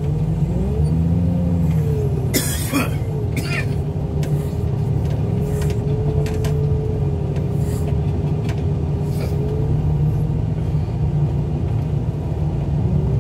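Front-end loader's engine running as the machine drives and backs in, a steady drone whose pitch rises and dips in the first two seconds, then holds level. A short sharp noise about two and a half seconds in.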